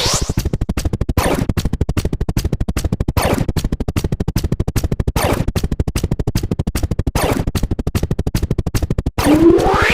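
Rapid sound-effect ticks, about ten a second, with a falling swoosh-like sweep about every two seconds. Near the end there is a brief gap, then a loud sweep rising sharply in pitch.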